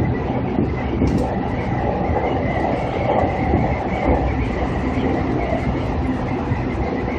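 Seibu Ikebukuro Line electric train running along the track, heard from inside the front car: a steady rumble of wheels on rails with a faint high whine over it.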